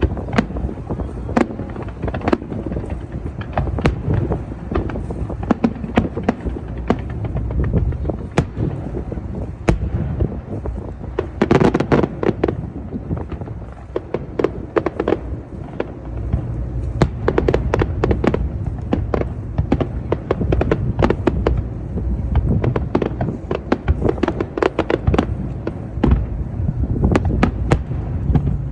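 Fireworks display: a continuous run of aerial shell bursts and sharp cracks over a low rumble, with a dense volley about twelve seconds in and frequent cracks through the second half.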